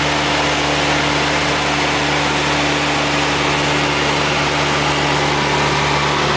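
Steady drone of a Cessna light aircraft's piston engine and propeller in flight, heard inside the cabin, with a low hum under a wide rushing hiss of wind and airframe noise that holds constant.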